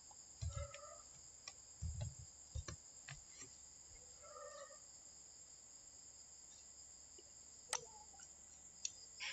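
Quiet room tone with a steady faint high-pitched whine, a scatter of soft computer keyboard key clicks and light taps as a word is typed, and two short faint calls in the background.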